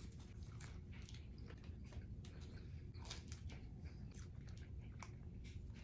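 A person chewing a mouthful of fast food, with faint, irregular smacking clicks.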